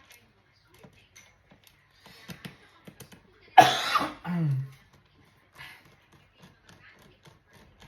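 A person coughs once, loudly, about three and a half seconds in, ending in a short falling throat sound. Faint small clicks and taps come and go around it.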